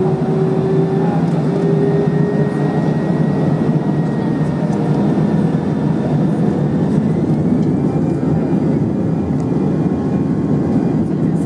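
Airbus A319-100 cabin noise over the wing, the jet engines and airflow giving a loud, steady rumble as the airliner rolls onto the runway. A thin whine rises slightly about seven seconds in.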